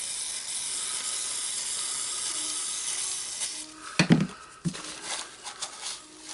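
A jet hissing steadily for about three and a half seconds as the rotary hammer's plastic clutch gear is cleaned. Then a sharp knock and a few light clicks as the parts are handled.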